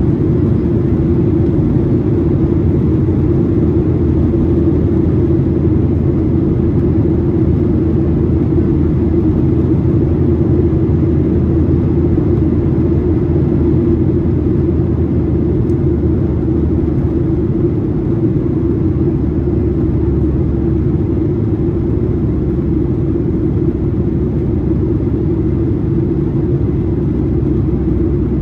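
Steady, loud cabin drone of a Boeing 737-800 with CFM56-7B engines, heard from a window seat: engine and airflow noise during the climb after takeoff, an unbroken low hum with a strong mid-low band.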